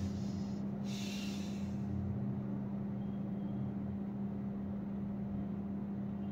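A steady low hum throughout, with a brief scratchy stroke of a marker on a whiteboard about a second in.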